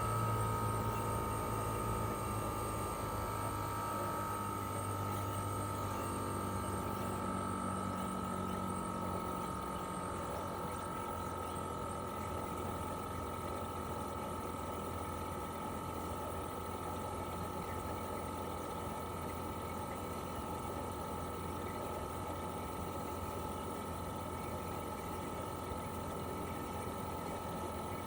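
Toshiba RAS-285BAD air-conditioner outdoor unit running in cooling mode: its twin-rotary inverter compressor and propeller fan give a steady hum with a held whine. A few of its tones shift and drop away about eight to ten seconds in, then it runs evenly.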